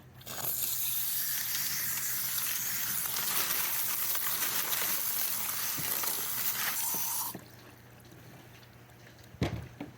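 Water spraying from a hose nozzle onto freshly tumbled rocks to rinse off the pre-polish grit, a steady hiss that cuts off about seven seconds in. A single knock comes near the end.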